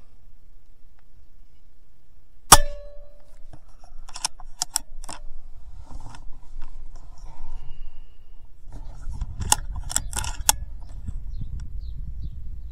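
A single shot from a DAR 22 Gen III PCP air rifle in .22 about two and a half seconds in, a sharp crack with a short ringing tone after it. Later come a few sharp metallic clicks in two small groups, and a low rumble in the last few seconds.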